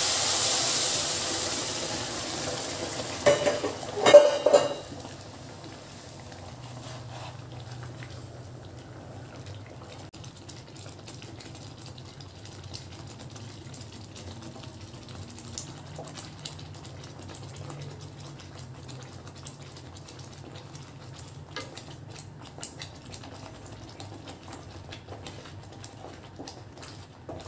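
Boiling water poured onto roasted semolina in a hot pan, hissing and sizzling loudly and fading over a few seconds, with a few knocks of cookware about three to four seconds in. Then a wooden spatula stirs the thickening semolina with faint scraping ticks over a low steady hum.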